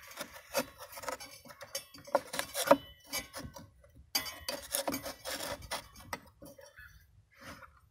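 A hollow ceramic brick and a wooden wedge being shifted and pushed against a stop on a plywood table: a busy run of clicks, knocks and scraping, dying away near the end.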